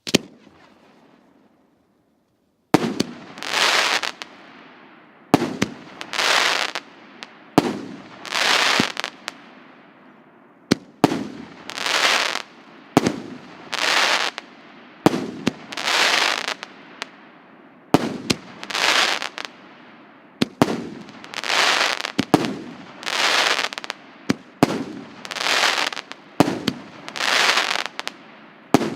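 Consumer fireworks cake of nineteen 2-inch shots firing shot after shot, about one every two seconds after a single report and a short pause at the start. Each shot is a sharp launch crack followed by the aerial burst of crackling stars lasting about a second.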